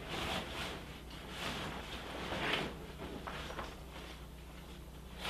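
Soft rustling of nylon fabric as a stuffed underquilt sack is pushed down into a backpack and the pack's top is closed, in several short scuffs over a steady low hum.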